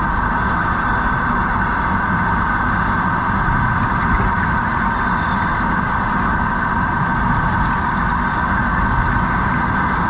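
Steady underwater noise picked up by a submerged camera: a continuous low rumble with a strong hiss, unbroken and without distinct events.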